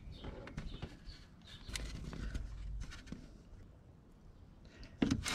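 Faint handling noise of a rubber oil cooler hose being pushed back onto its metal line and a hose clamp worked with pliers: small scattered clicks and rubbing, with two sharper clicks near the end.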